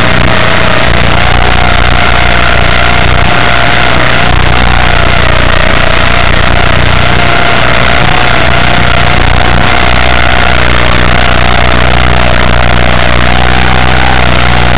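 Small RC helicopter's electric motor and rotor whining steadily, the pitch wavering slightly with throttle, over loud hiss and a low hum.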